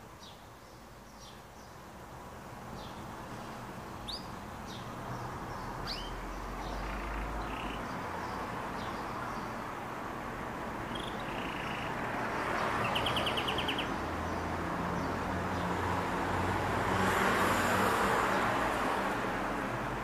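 Caged canary giving scattered short chirps and calls, with a brief rapid trill about two-thirds of the way through. Street traffic noise swells twice underneath, loudest near the end.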